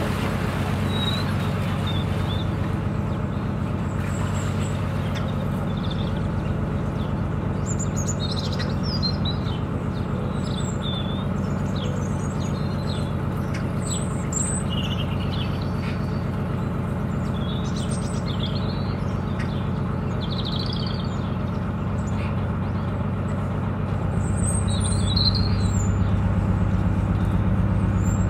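A narrowboat's engine running steadily, with birds chirping over it from about a third of the way in. The engine grows a little louder near the end.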